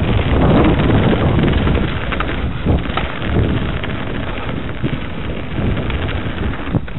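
Mountain bike riding fast down a gravel and dirt forest trail: a steady wind rush over the camera's microphone with tyre rumble, and a few short knocks and rattles from the bike over bumps.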